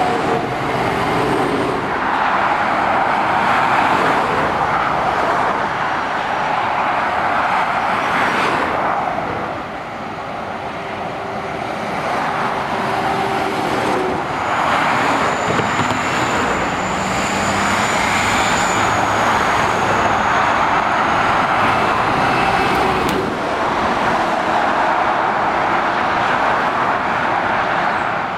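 Motorway traffic: heavy lorries and cars driving past, mostly steady tyre noise with engine drone, swelling as each one passes and easing briefly about ten seconds in.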